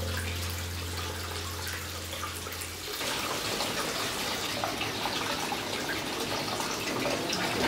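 Hot-spring water running into a stone open-air bath, a steady trickle and splash; about three seconds in it turns brighter, with many small drips and spatters.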